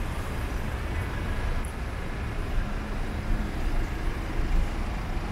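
City street ambience: a steady low rumble of traffic under a general background hubbub.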